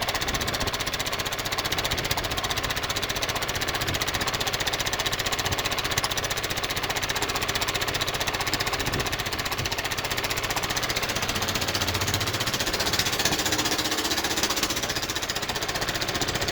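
A small boat's engine running steadily under way, a fast, even pulsing beat.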